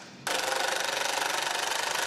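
Power impact wrench hammering as it runs nuts down onto the bolts of a cedar-log picnic table frame; it cuts out briefly and starts again about a quarter second in, then runs steadily.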